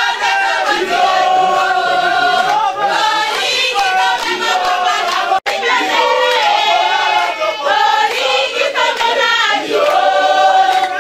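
A crowd of women singing a song together, many voices at once, with a brief sudden break in the sound about halfway through.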